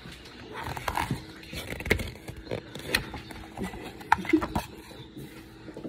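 Paper pages of a picture book being handled and turned: soft rustling with a scattering of short clicks and taps from fingers on the paper.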